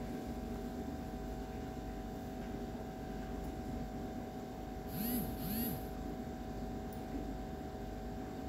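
Chopped onions and curry leaves frying in oil in a pan: a steady low sizzle with a hum under it. About five seconds in come two short chirps, each rising then falling in pitch, about half a second apart.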